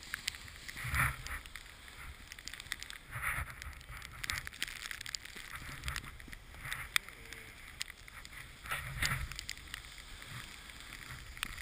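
Snowboard sliding and scraping over snow, in swishes every second or two as the board turns, with low rumble and scattered small clicks.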